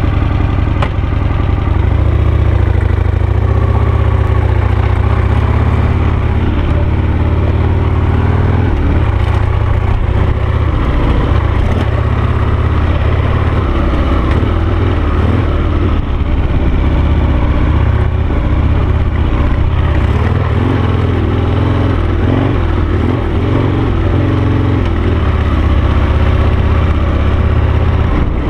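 Harley-Davidson Sportster V-twin engine of an SC3 Adventure dual-sport motorcycle running under way at steady low-to-moderate speed, its pitch rising and easing slightly with the throttle.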